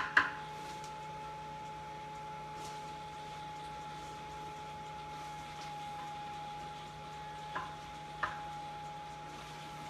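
Steady hum with a constant whine from the small electric blower fan that keeps an inflatable costume inflated. A sharp clack right at the start and two lighter clicks later on come from handling things on the counter.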